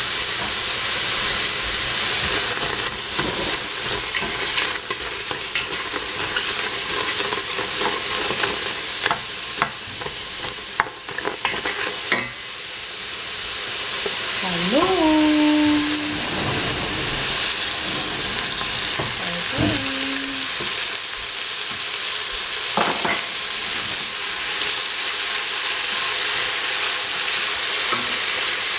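Julienned carrot, celery and shallot sizzling as they fry in a stainless steel pot, stirred with a wooden spatula that clicks and scrapes against the pot, the clicks coming thickest in the first half.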